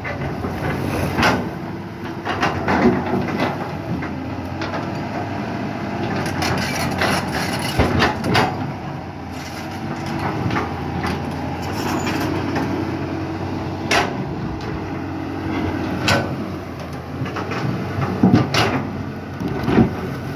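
CAT 320C excavator, repowered with a Mercedes-Benz 366 six-cylinder diesel, running steadily under load as it digs. Sharp knocks and clanks from the bucket working in the rocky soil come every few seconds.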